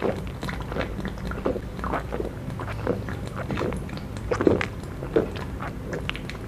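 A man gulping a malt drink straight from a glass bottle, swallowing in a steady run of about two gulps a second.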